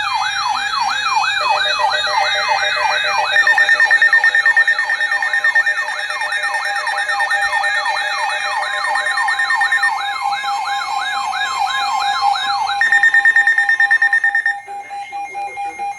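Several electronic emergency alert tones sound at once: a siren-like tone that sweeps upward about twice a second over steady alarm tones, ahead of a severe thunderstorm warning. Near the end the sweeping stops, and a steady tone carries on, pulsing.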